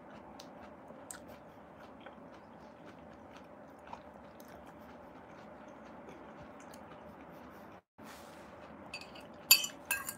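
Quiet chewing of banpeiyu pomelo fruit, with small scattered clicks. Near the end comes a run of sharp clinks of tableware, the loudest sound.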